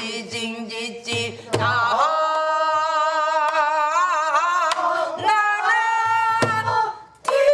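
Korean pansori-style singing: long, wavering held notes in a woman's voice, with a few drum strokes keeping the rhythm.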